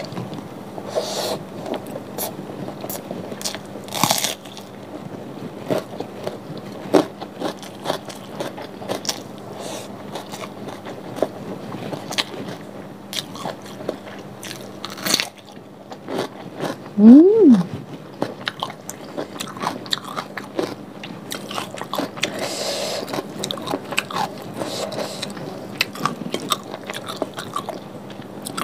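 Close-miked eating by hand: crunching bites into a raw cucumber and chewing of fried cassava rice, with many small clicks. A little past the middle, a short tone slides up and back down; it is the loudest sound.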